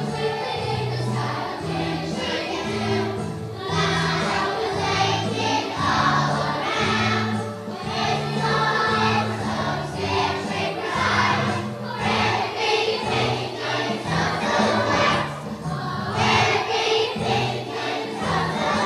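Choir of students singing with instrumental accompaniment, a steady bass line under the voices.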